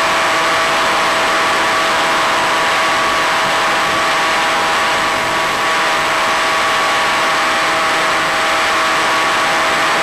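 Electric pusher motor and propeller of a Multiplex EasyStar foam model plane running in flight, with the rush of air over the airframe: a steady hiss with several constant whining tones. The level holds the same throughout.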